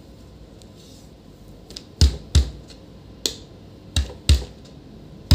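Hard metallic clicks and knocks from a screwdriver and a laptop's steel hinge plate against the plastic display lid, about seven in all. They begin about two seconds in, several in quick pairs.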